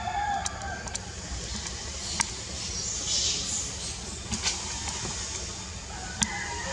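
Forest ambience: a steady low rumble, with a few sharp clicks or snaps scattered through. Short pitched animal calls come right at the start and again near the end.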